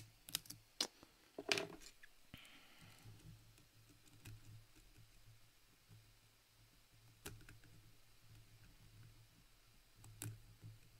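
Small sharp metallic clicks of a lock pick and tension wrench working the pin stack of an Assa Twin 6000 cylinder lock. A quick cluster of clicks comes in the first two seconds, then single clicks a few seconds apart.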